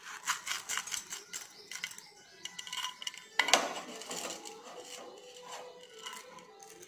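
Dry split chickpeas (chana dal) poured from a steel bowl into a steel vessel of grains: a rapid patter of small hard clicks as the lentils land, with one louder knock about halfway through, then a few scattered clicks as the last grains are scraped out.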